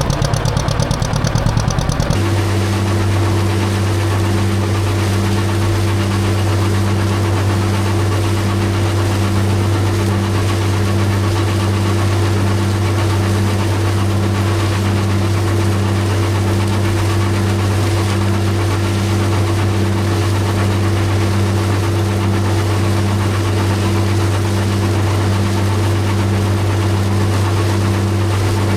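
John Deere tractor engine idling steadily, with an even pulsing beat. The sound changes abruptly about two seconds in, then holds steady.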